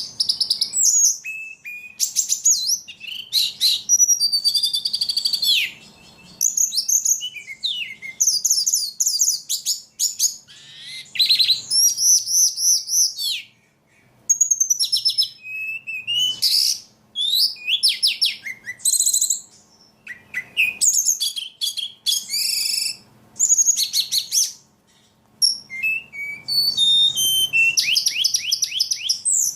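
A caged 'ledekan' songbird singing continuously in a fast, varied stream of high chirps, whistled sweeps and trills, broken by short pauses every few seconds. A faint low hum sits under the song.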